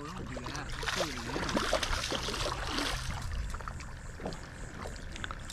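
Water sloshing and splashing around a kayak while a hooked shark is fought on the line. It sounds like a steady watery hiss scattered with small sharp splashes and ticks.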